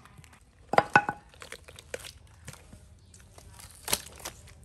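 Hands pulling cooked meat, tendon and cartilage apart on a boiled cow head: soft tearing and crinkling with a few knocks against the wooden chopping block, the sharpest about a second in and another near the end.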